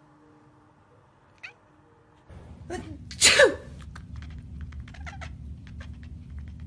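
A cat gives one short rising chirp, then a loud sneeze about three seconds in, with a smaller sneeze-like burst just before it, followed by faint scattered clicks.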